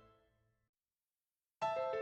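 Background music: the notes die away in the first moments, then about a second of dead silence, and the music starts again abruptly near the end.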